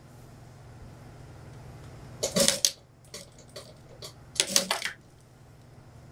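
Industrial lockstitch sewing machine stitching in two short bursts of about half a second each, about two and a half and four and a half seconds in, with a few small clicks between them and a steady low hum from the machine underneath.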